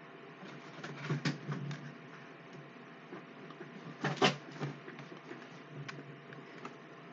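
Rubik's cube being turned by hand: clusters of quick plastic clicks and clacks as the layers turn, one about a second in and a louder one around four seconds in.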